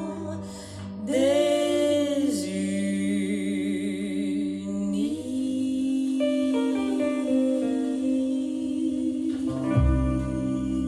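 Music played through Buchardt A10 loudspeakers: a singer holding long notes with vibrato over plucked guitar and sustained lower tones, with a deep bass note coming in near the end.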